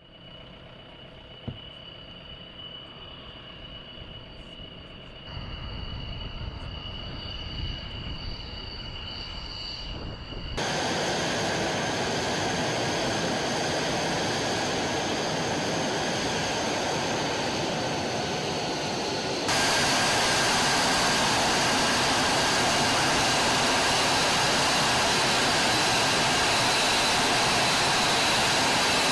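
F-35 Lightning II's F135 turbofan running on the ground while the jet taxis: a steady jet rush with a high whine. It grows louder in sudden steps about 5, 10 and 20 seconds in.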